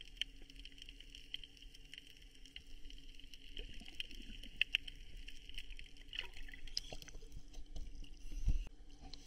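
Water splashing and dripping over a steady high-pitched hiss, with scattered small clicks and a low thump near the end.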